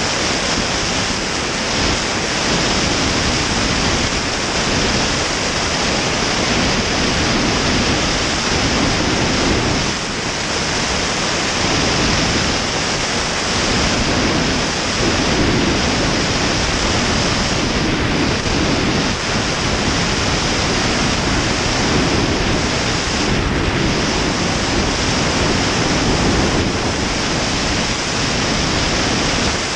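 Loud, steady rush of airflow over a camera mounted on the wing strut of an Ikarus C42 ultralight aircraft in flight: wind noise on the microphone that covers the engine and propeller.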